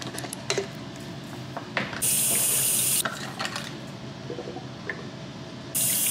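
Bathroom sink faucet running for about a second, about two seconds in, then turned on again near the end with hands under the stream. Between the two, small clicks and taps of plastic toiletry bottles, caps and a toothbrush being handled.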